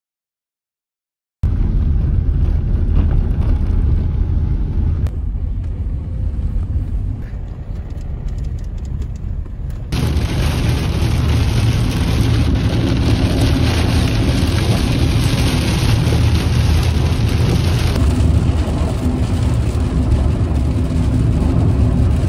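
Road noise inside a moving car: a loud, steady low rumble that starts suddenly after about a second and a half, with its character changing abruptly twice.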